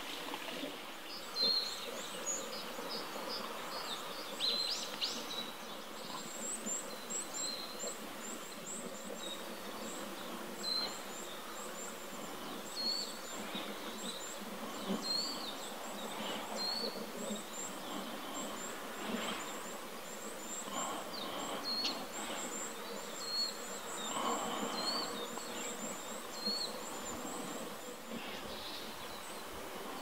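Small wild songbirds calling: short high calls every second or two, and runs of very high, thin ticking notes, over a steady outdoor hiss.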